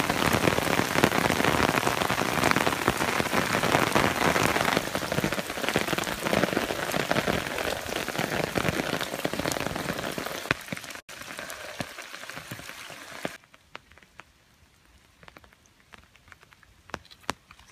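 Rain falling steadily, a dense patter of close drops ticking. About thirteen seconds in it cuts off abruptly, leaving a much quieter stretch with a few scattered ticks.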